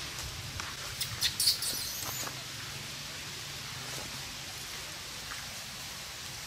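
Long-tailed macaques giving a few short, high squeaks between one and two seconds in, over a steady low rustle of the troop moving about.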